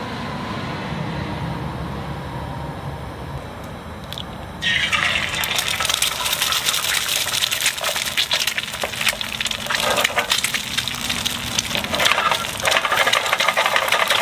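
Oil poured into a hot carbon steel frying pan on a butane camp stove. About four and a half seconds in, an egg goes into the hot oil and it sizzles and crackles loudly as the egg fries.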